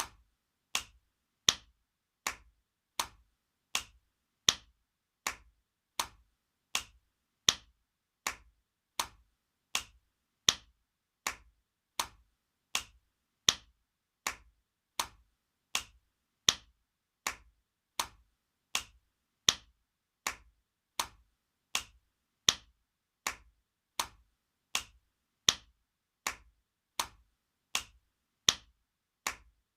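Spanking sound effect: a sharp open-hand slap, repeated at an even pace of about four every three seconds, some slaps louder than others.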